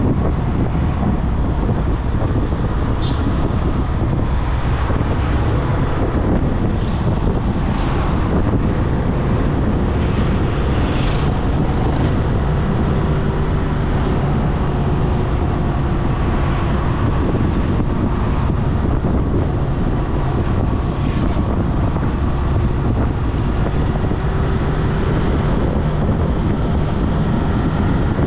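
Steady road and wind rumble from a car driving along a highway, with a low engine hum underneath. Brief higher sounds of passing traffic come through now and then.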